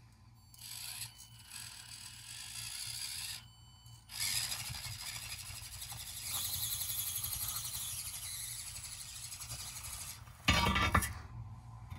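Axial SCX24 mini rock crawler on its stock gears climbing a wooden angle board: the small electric motor and geared drivetrain whir steadily, with a short pause a few seconds in. There is a brief louder clatter near the end.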